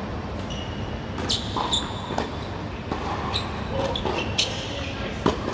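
Tennis ball being hit by rackets and bouncing on a hard court during a rally: a series of sharp knocks, the loudest near the end, with short squeaks of tennis shoes on the court in between.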